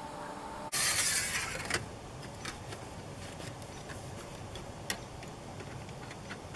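A loud hiss of noise lasting about a second, then scattered small metallic clicks as a hand screwdriver tightens the clamp on a stove-pipe storm collar.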